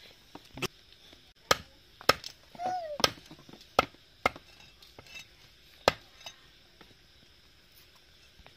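A large knife striking a wooden chopping block in a string of sharp, irregular chops as a whole fish is trimmed on it. The chops thin out after about six seconds.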